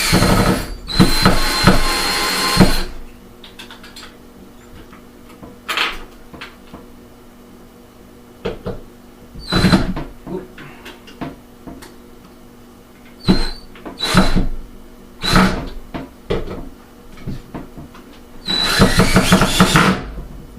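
Cordless drill driving screws into a window-shade mounting bracket: the motor whines in several short runs, with a longer run near the start and another near the end, and a few brief handling knocks in between.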